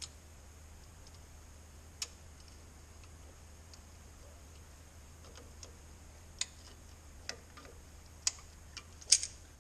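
Small metallic clicks and taps of brake hardware being handled: the pad pins being turned into line in a front disc brake caliper and its small retaining clip being fitted. The clicks come a few seconds apart, then several in quick succession near the end.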